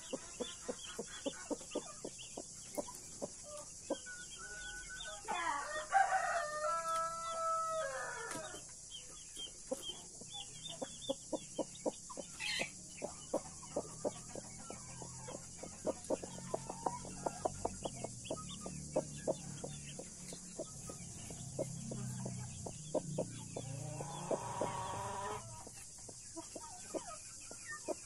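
Chickens calling in a coop: a blue mother hen clucking in a steady run of short calls among her peeping chicks. A rooster crows once for about three seconds, about five seconds in, and a second long crow comes near the end.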